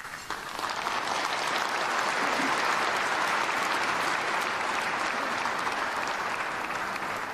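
A large audience applauding, the clapping building within the first second and then holding steady.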